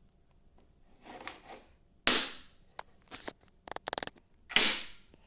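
Fake fire alarms being handled and set down: a sharp knock about two seconds in, a quick run of about eight clicks a little later, then another knock, with some faint rustling before them.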